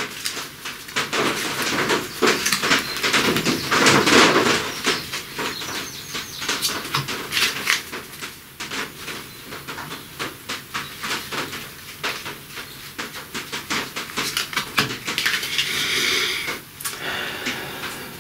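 A deck of Dixit cards shuffled by hand: a rapid, irregular run of card clicks and flicks, with a brief sliding rustle near the end as cards are set down on the tablecloth.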